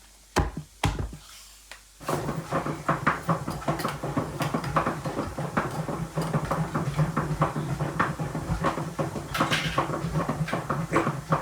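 A few knocks, then about two seconds in a small machine starts up and keeps running with a steady low hum under a rapid, rattling clatter.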